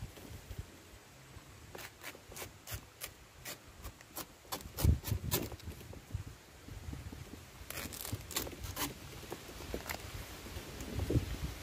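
Sharp clicks and scraping from a knife and hands working at the sheath of a kithul palm flower stalk, coming in two runs of quick clicks with low handling thumps between.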